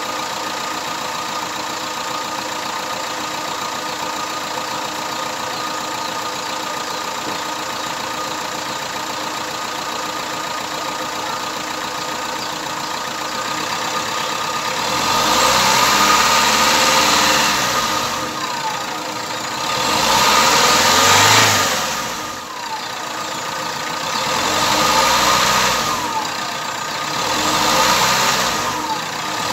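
Chevrolet turbodiesel engine idling steadily while being test-run after repair, its sound still healthy to the mechanic. From about halfway it is revved four times, each rev rising and falling back to idle.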